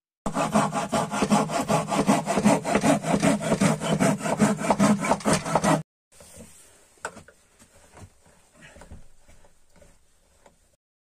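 Rapid back-and-forth rasping strokes, about five a second, like a hand saw going through wood, starting and stopping abruptly after about five seconds. They are followed by a much fainter stretch of scattered clicks and knocks.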